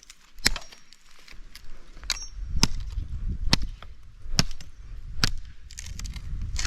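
Firewood being chopped: a series of about seven sharp blows, coming roughly once a second after the first two seconds.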